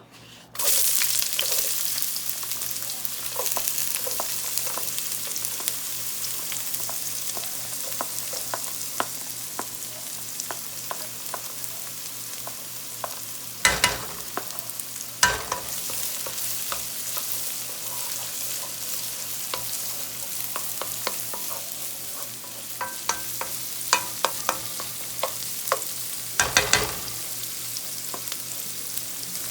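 Food sizzling in a hot frying pan with a steady hiss that starts suddenly just after the beginning, while a utensil stirs it, giving scattered clicks and a few sharp knocks against the pan.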